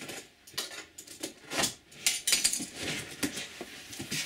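Cardboard box being opened by hand: packing tape cut and pulled at the top seam, then the cardboard lid scraping as it is lifted off. The sound is a run of irregular scrapes, rustles and clicks.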